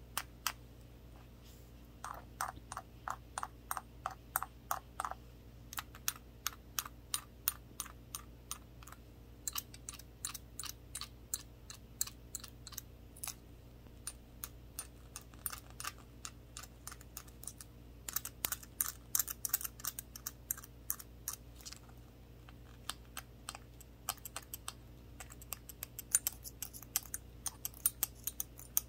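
Gloved fingertips tapping on a small shot glass with a handle: quick, sharp clicks in irregular runs of several a second. From about two to five seconds in, a run of taps brings out a fuller, more ringing tone from the glass.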